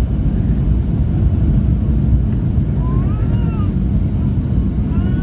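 Steady low rumble inside the cabin of a Boeing 737-800 on final approach: airflow and the CFM56-7B turbofan engines. A faint pitched sound rises and falls briefly about three seconds in.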